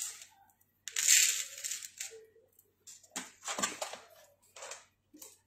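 Handling noise from jewellery being moved about: a rustle about a second in, then several short clinks and knocks.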